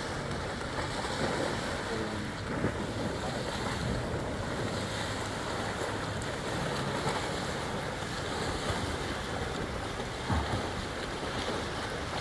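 Steady rush of the swollen Neckar in flood running fast past the riverbank, with wind buffeting the microphone.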